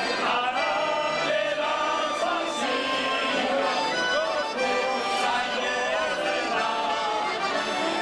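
Three accordions, two piano accordions and a button accordion, playing a lively Basque folk tune together, with a man singing along.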